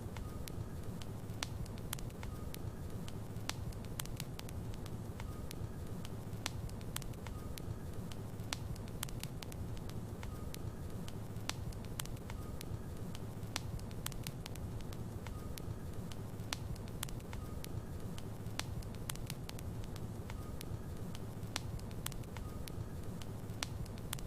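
Wood logs burning in a fireplace: a steady low rumble of the fire with frequent sharp crackles and pops at irregular intervals.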